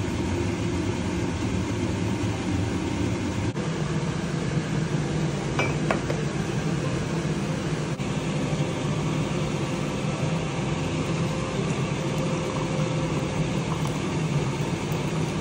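Hot water poured in a steady stream from a metal kettle onto loose tea in a teapot's steel infuser, then tea poured from the ceramic teapot into a ceramic mug. A short ceramic clink about six seconds in.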